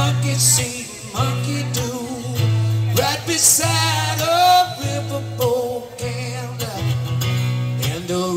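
A man singing along to his own strummed acoustic guitar in a live amplified performance of a pop-rock song.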